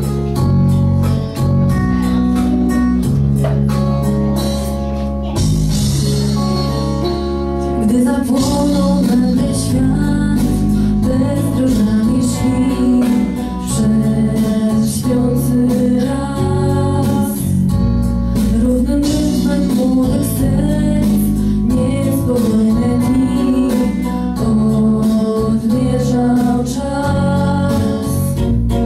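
Two women singing a song into microphones over an instrumental backing with a steady beat; the singing comes in about eight seconds in, after an instrumental introduction.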